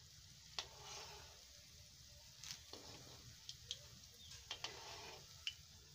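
Bread-dough gulab jamun frying gently in refined oil in a kadhai: a faint sizzle with scattered small pops and clicks.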